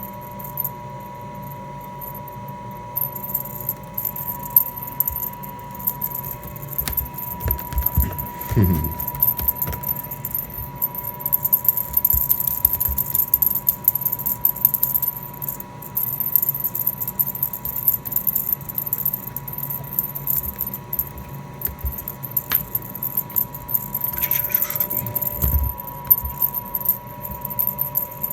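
Washing machine running with a steady hum, its load giving a continual light metallic jingling and rattling, with a low thump about eight seconds in and another near the end.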